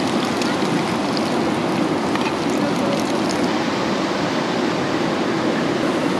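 Heavy rain falling steadily, a dense hiss with scattered individual drops ticking through it.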